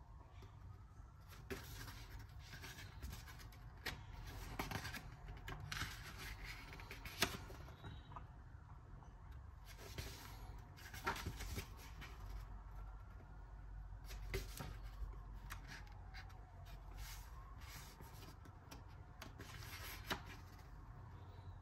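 Pages of a softcover black-and-white art book being turned by hand: paper rustling and sliding in irregular bursts, with a few sharper page snaps, the loudest a little past a third of the way in.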